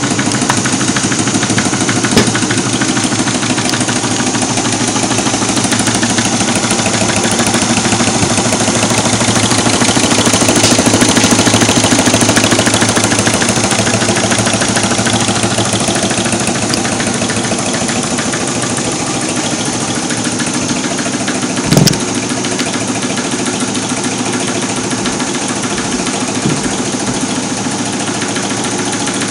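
Homemade two-cylinder Stirling engine running at speed, its rods and linkages clattering in a rapid, steady rhythm over the steady hiss of its gas burners. A single brief thump about two-thirds of the way through.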